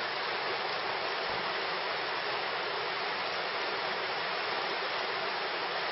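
Bright Angel Creek's water rushing, a steady unbroken noise of flowing water.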